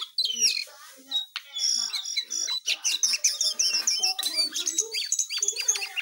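A caged jongkangan songbird singing a fast, varied, continuous song of chirps and whistled notes.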